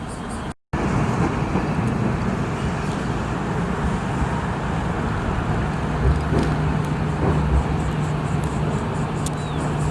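Steady vehicle rumble, with a low steady hum joining about six seconds in. The sound drops out briefly just after the start.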